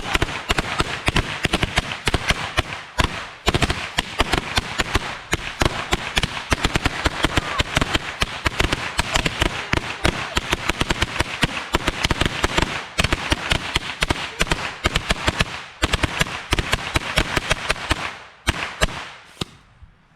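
A long string of Chinese firecrackers going off in rapid, continuous cracks, with a couple of brief pauses, thinning out and stopping near the end.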